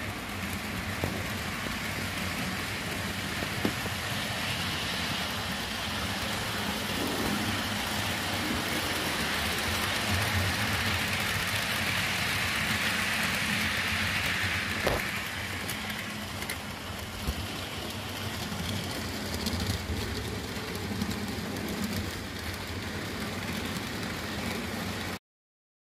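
HO-scale model freight train running on the layout: a steady whir and rattle of the motor and wheels on the track, with a few sharp clicks. It cuts off suddenly near the end.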